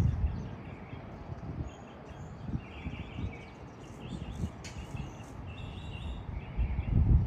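Outdoor ambience with a few short, high bird chirps near the middle, over low rumbles of wind on the microphone that swell at the start and again near the end.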